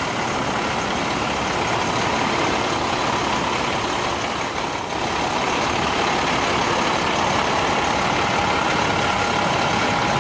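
Steady motor-vehicle engine drone with a few faint steady whine tones.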